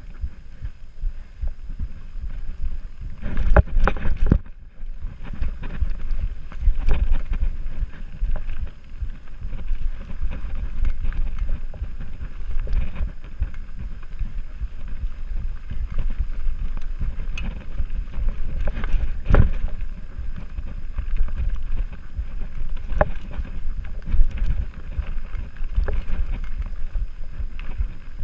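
Mountain bike descending a dirt forest singletrack: tyres rumbling over dirt and roots, with frequent sharp knocks and rattles from the bike over bumps and wind buffeting the GoPro's microphone. A short lull comes about four seconds in.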